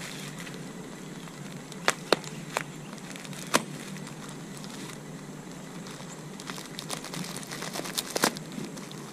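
Plastic bubble wrap crinkling and crackling as it is cut open with a knife, with a few sharp clicks at first and a denser run of crackles near the end.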